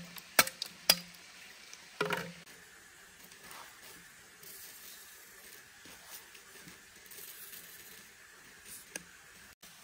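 Machete chopping green bamboo: three sharp strikes in the first two seconds or so. After that, faint rustling and light clicks as the cut bamboo tubes are handled.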